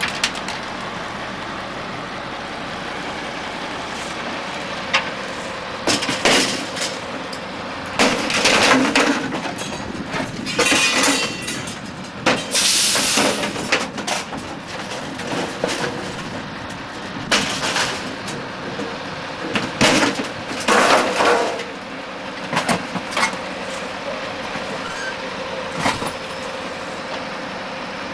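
Garbage truck engine running steadily while the rear compactor crushes trash. Loud cracks and breaking glass come about eight times, some in quick clusters.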